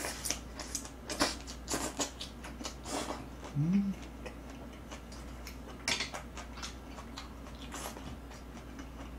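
Chewing a mouthful of boiled pork (bossam) with green onion kimchi: a run of wet mouth clicks and smacks, thinning out after about four seconds. A short rising 'mm' hum comes about four seconds in.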